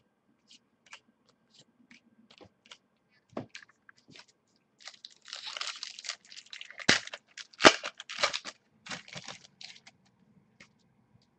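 Foil wrapper of a trading-card pack being torn open and crinkled, with two loud sharp snaps in the middle. Scattered light clicks come before it.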